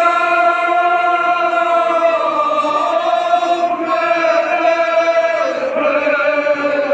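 A group of voices chanting a Kashmiri marsiya, a Muharram elegy, in unison, holding long drawn-out notes that slowly fall in pitch.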